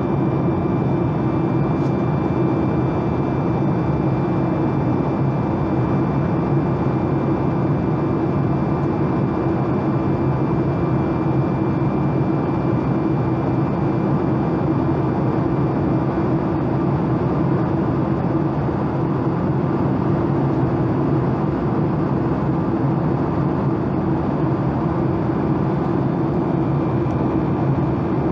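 Steady cabin noise inside a Boeing 737 MAX 8 in flight, heard beside its CFM LEAP-1B engine: a constant deep rush of engine and airflow with a faint high whine held steady on top.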